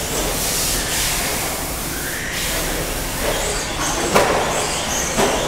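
Several modified-class electric off-road RC trucks racing: high-pitched electric motor whine that rises and falls with throttle over a steady hiss of tyres on the track, with a couple of sharp knocks near the end.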